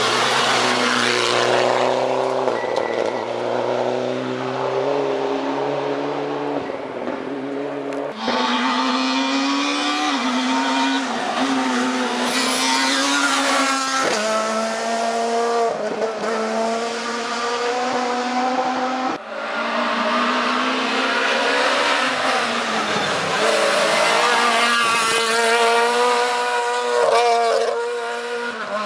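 Rally cars passing one after another at speed, engines revving hard with the pitch climbing and dropping through gear changes. Among them are a Mitsubishi Lancer Evolution and a Ford Fiesta rally car. The sound cuts abruptly from one car to the next a few times.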